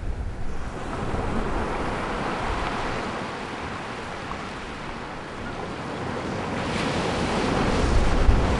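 Ocean surf washing in, swelling louder about a second in and again to its loudest near the end, with wind rumbling on the microphone.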